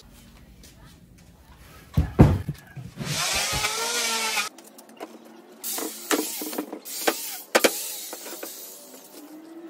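A few heavy thumps about two seconds in, then several loud bursts of a hand-held power tool's motor whining and wavering in pitch, with a sharp knock partway through.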